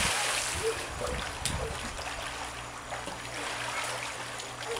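Pool water sloshing and trickling around people moving in the water, with a short sharp splash or knock about a second and a half in.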